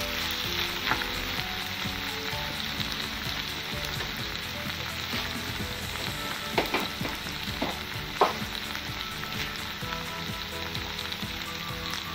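Potato chunks, red pepper and onion sizzling steadily as they fry in oil in a wok, stirred with a wooden spoon at first. A few sharp clicks come about two-thirds of the way through.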